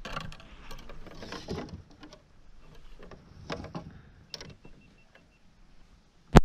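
A bass thrashing as it is netted and lifted over the side of a kayak: irregular splashing and rustling with knocks of the net and rod against the hull, dying down about halfway. One sharp, loud knock just before the end is the loudest sound.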